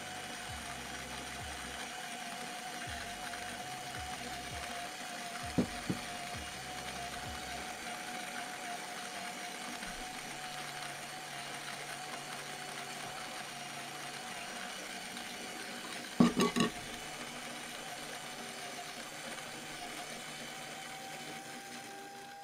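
Option-O Lagom Mini single-dose electric coffee grinder running steadily through a dose of beans: a low-speed motor turning hand-grinder-style burrs, with a steady whine over the grinding noise. There are two sharp knocks about six seconds in and a louder cluster of three knocks around sixteen seconds. At the very end the grinding noise drops away and the whine steps up slightly in pitch.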